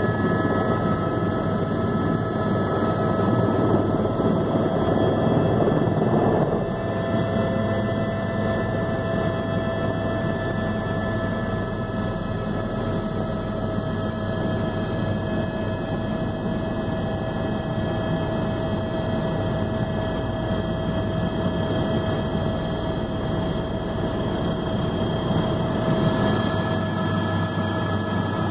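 Helicopter's turbine engine and rotor heard from inside the cabin: a steady high whine over a dense rumble, slightly louder for the first six or so seconds.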